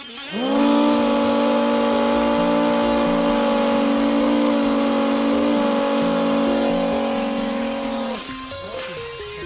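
Two small DC hobby motors with plastic propellers, switched on by hand: they spin up quickly to a steady, loud whine and cut out about eight seconds in.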